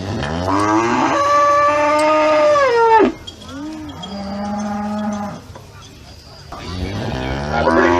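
Cattle mooing. A long moo rises at its start and drops off about three seconds in, a shorter, lower moo follows, and another long moo begins near the end.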